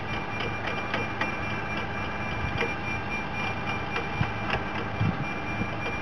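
Tractor engine running steadily under load as it pulls a compost windrow turner in creeper gear, the turner's drum of knives working through the pile. A thin steady whine and light irregular ticking sit over the engine drone.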